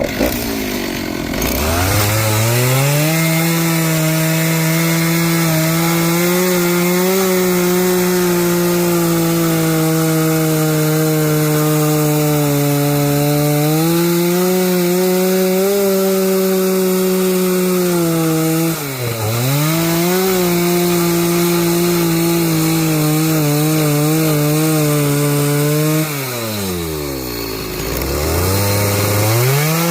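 Chainsaw cutting through a wooden beam. The engine revs up quickly to full speed and holds there under load. It dips briefly about two-thirds of the way through, then drops to idle near the end before revving up again.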